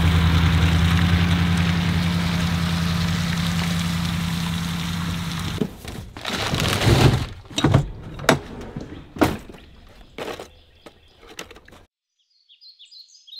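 A steady low hum that slowly fades and cuts off about six seconds in, followed by sharp knocks and clatter of plastic tackle boxes and trays being handled in a truck bed. Faint bird chirps near the end.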